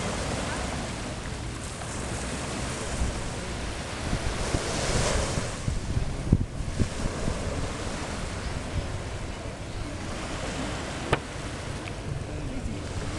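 Small waves washing on a beach, with wind buffeting the microphone as a low rumble. The wash swells once about five seconds in, and there are a couple of short knocks about six and eleven seconds in.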